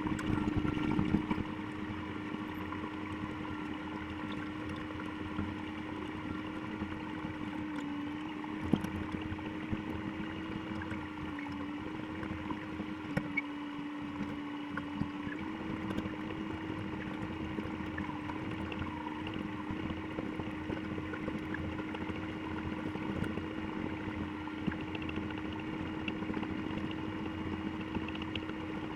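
Komatsu excavator's diesel engine running steadily at working speed, its pitch dipping slightly a few times in the middle.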